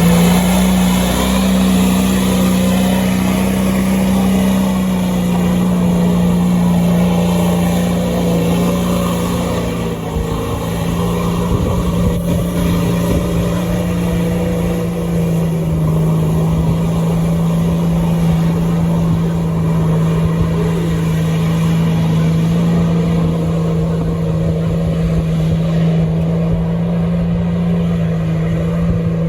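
Off-road vehicle engine revving up, then held at steady high revs.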